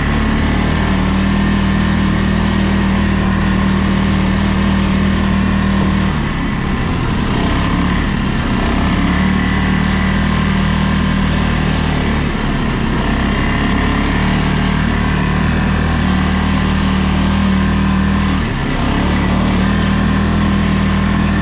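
ATV engine running steadily while riding, easing off briefly a few times, about six, twelve and eighteen seconds in, then picking back up.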